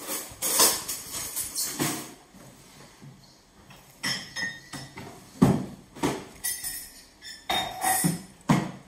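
Kitchen clatter: a scattered series of sharp clinks and knocks, a few of them ringing briefly, the loudest about halfway through.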